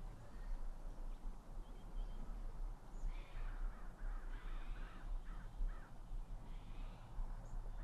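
A bird calling in a run of about six short calls, roughly two a second, starting about three seconds in, over a faint low rumble.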